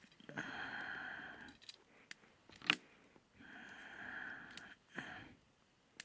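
Someone blowing hard into a smouldering wood-stove fire to liven it, two long breaths about three seconds apart, with a sharp crack between them. The fire is smoking and burning poorly.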